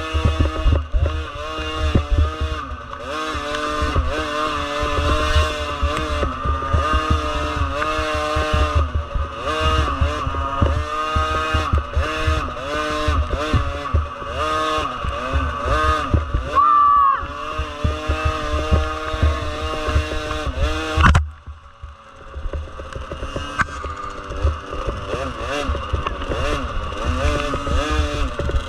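Small motorcycle engine running and revving, its pitch rising and dipping, with a quick rev about 17 seconds in; the sound cuts off abruptly about 21 seconds in and comes back quieter.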